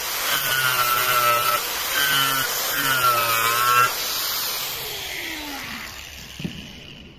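Handheld angle grinder sanding the face of a wooden cutting board, its motor whine rising and dipping as it is worked across the wood. About four seconds in it is switched off and spins down with a falling whine, followed by a light knock.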